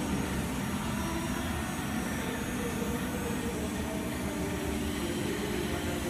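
Full hydraulic CNC panbrake folder running a fold: its hydraulic power pack hums steadily as the bending beam lifts a steel sheet, with faint tones that shift a little in pitch partway through.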